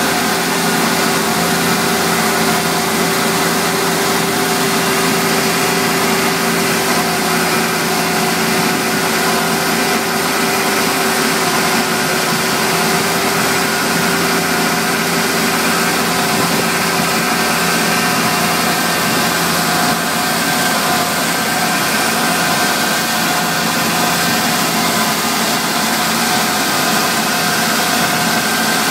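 Fendt 820 Vario tractor engine running steadily while working a field, pulling a plough or a power-harrow seed drill. The pitch holds constant, with no revving or let-up.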